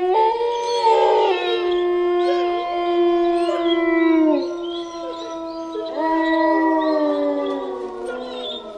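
A chorus of wolves howling: several long howls at different pitches overlap, held and gliding up and down, and fade away near the end.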